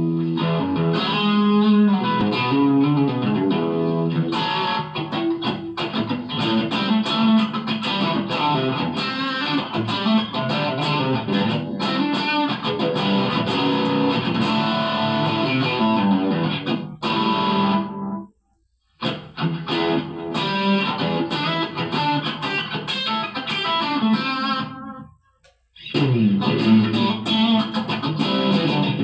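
Electric guitar being played: a continuous run of plucked notes and chords. It breaks off briefly twice, about two-thirds of the way through and again near the end.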